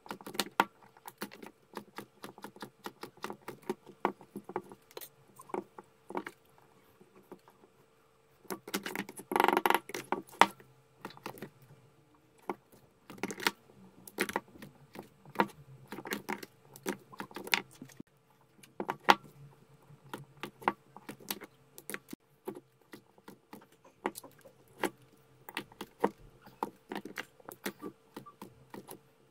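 Irregular light metallic clicks and clinks from hands and tools working on a battery pack, with a denser flurry of clatter about nine seconds in, over a faint steady hum.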